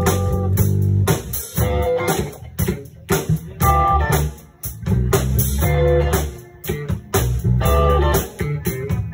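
Live band playing an instrumental funk passage on electric guitar, bass guitar and drums, in short stop-start phrases with brief breaks between them.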